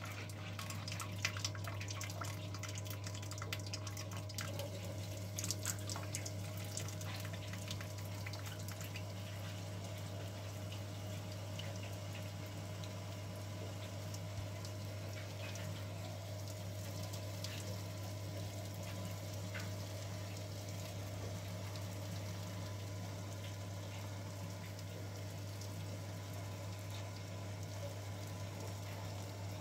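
Sparge water pumped through a tube, splashing off a spoon deflector onto the grain bed in a mash bag: a steady splashing trickle during the sparge of an all-grain brew. A steady low hum runs underneath, with a few faint clicks in the first several seconds.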